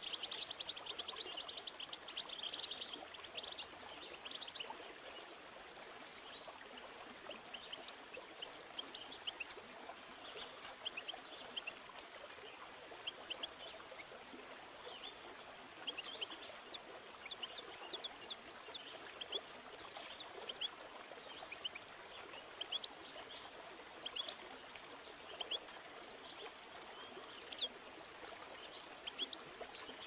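Small songbirds chirping, many quick high chirps scattered throughout, over a steady hiss like running water.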